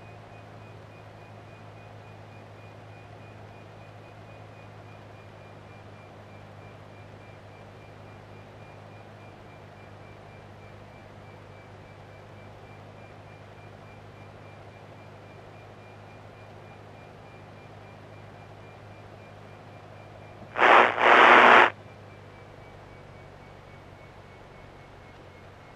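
Piper Warrior's four-cylinder Lycoming engine running steadily on final approach, with a faint high whine slowly falling in pitch. About 21 seconds in, a loud burst of hiss lasts about a second, with a short break in the middle.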